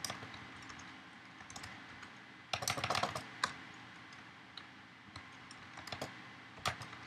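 Typing on a computer keyboard: scattered keystrokes, a quick run of them about two and a half seconds in, then a few single taps near the end.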